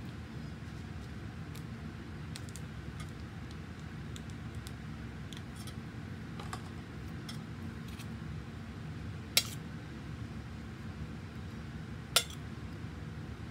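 A metal spoon clinking against a stainless steel mixing bowl: scattered light ticks, then two sharp clinks about three seconds apart in the second half, over a steady low hum.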